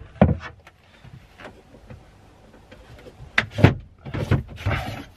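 A wooden table top set down with a knock, then clunks, knocks and scraping as an aluminium articulating table leg is handled and taken off its mount. There are two sharp knocks about three and a half seconds in, followed by a rattling scrape.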